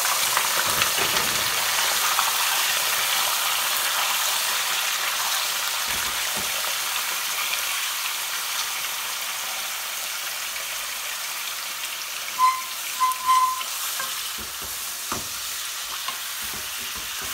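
Raw lamb pieces sizzling in hot oil with whole spices in an aluminium pan, loudest at the start and slowly easing, while a spatula stirs them with a few soft knocks. Three short high-pitched tones sound about twelve seconds in.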